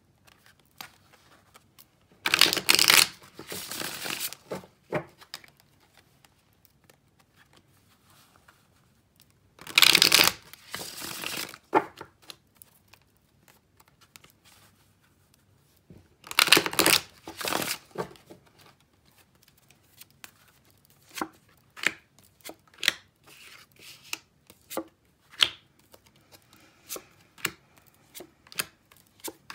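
A deck of tarot cards shuffled by hand in three bursts of about two seconds each, followed by a string of light taps and flicks as cards are drawn and laid down on a cloth-covered table.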